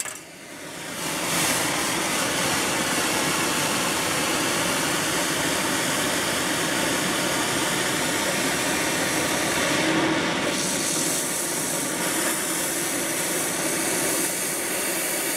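Lit oxy-acetylene welding torch: the flame swells into a steady, loud hissing rush over the first second or so as the gas is opened, then burns evenly while oxygen is added to bring it to a neutral flame.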